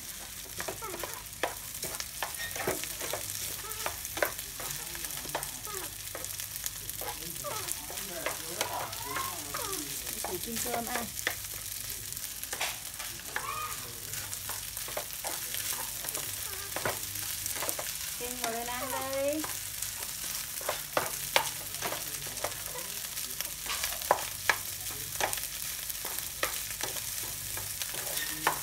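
Cooked rice frying and sizzling in a pan, stirred and tossed with chopsticks and a spatula that scrape and click against the pan again and again. A few short high squeaky calls come through in between.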